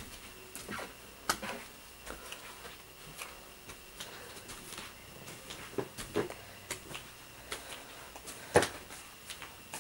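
Footsteps and handling knocks from someone carrying a camera up carpeted stairs and along a hallway: scattered soft thumps and clicks, with one sharper knock near the end. A faint steady high tone runs underneath.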